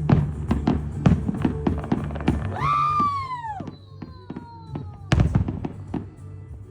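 Fireworks going off in a rapid series of bangs and crackles. About two and a half seconds in, a whistling firework rises and then falls in pitch, followed by fainter falling whistles, and a loud bang comes at about five seconds.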